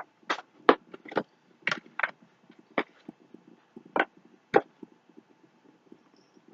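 Irregular sharp knocks and clicks of items being handled and set down on a hard surface, about ten of them over the first five seconds.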